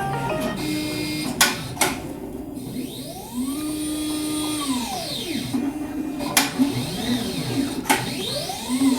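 Nitec CLS-408 computerized layout table running, its drive motors whining up in pitch, holding and falling again as the gantry speeds up, travels and slows between moves. Several sharp clicks come in between the moves.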